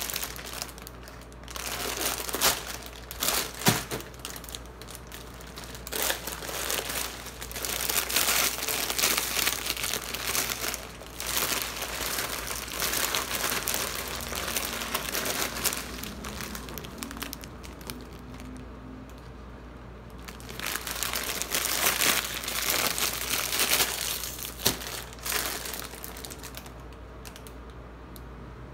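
Crinkly plastic multipack wrappers of Nongshim Shin Ramyun and Ottogi Jin Ramen instant noodles crackling as hands handle and squeeze them. The sound comes in bursts, with a quieter lull about two-thirds of the way through and again near the end.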